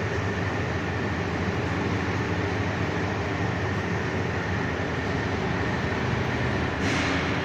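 Machine tool running steadily while an injection-moulding screw is machined, a continuous mechanical hum and rumble, with a brief louder hiss near the end.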